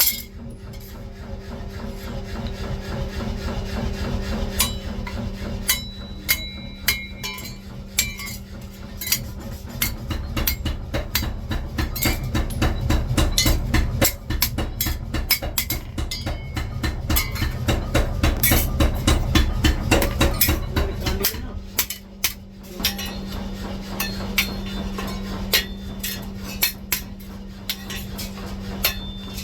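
Steel being hammered: many sharp metal-on-metal strikes, coming rapidly in the middle, over a steady machine hum.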